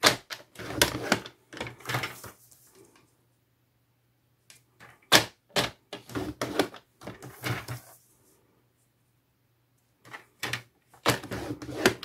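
Paper trimmer scoring cardstock: the scoring blade's carriage clacks and scrapes along its track, and the card knocks against the guide as it is turned. There are about a dozen short clacks, with two quiet pauses.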